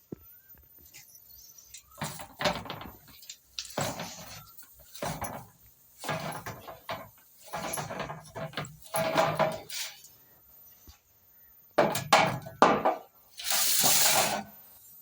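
Kitchen pots, pans and dishes clattering and clinking in irregular knocks, some ringing briefly, with a hiss of about a second near the end.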